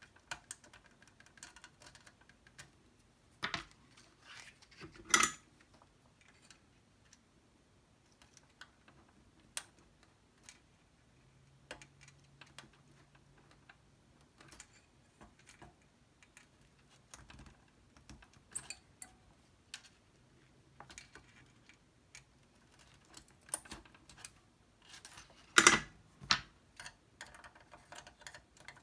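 Irregular small clicks and taps from a tool and fingers working over the TRS-80 Model 1's circuit board and its socketed chips, with two louder knocks, about five seconds in and near the end.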